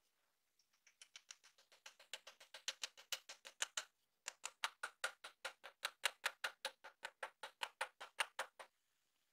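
Rapid light tapping on a wooden wedge driving it into the eye of a steel hammer head to lock the handle, about four to five strikes a second in two runs with a short pause about four seconds in.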